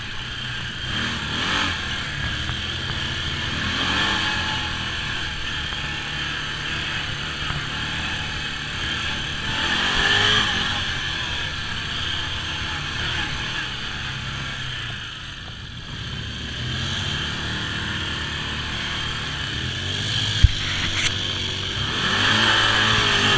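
Side-by-side UTV engine running as it drives along a rough dirt trail, with rattling over the bumps. It speeds up about halfway through, eases off briefly, and picks up again near the end. One sharp knock sounds about 20 seconds in.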